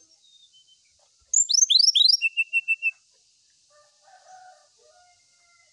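Brown-chested jungle flycatcher singing one short phrase about a second in: three quick downward-sweeping whistles, then a rapid run of about six short clipped notes. A steady faint high hiss lies underneath.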